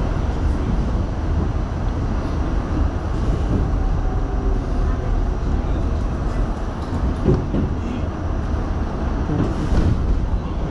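New York City subway train running through a station, heard from inside the car: a steady rumble of wheels on the rails.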